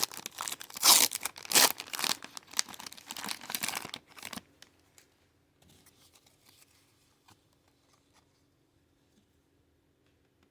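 Foil wrapper of a Pokémon booster pack being torn open and crinkled, dense crackling for about four seconds, then stopping, with only a few faint soft clicks of cards being handled after.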